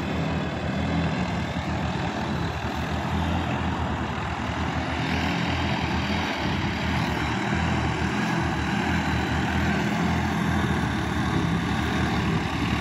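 Sonalika DI 50 tractor's diesel engine running steadily under load as it pulls a rotary tiller through a wet paddy field, slowly getting louder as it comes closer.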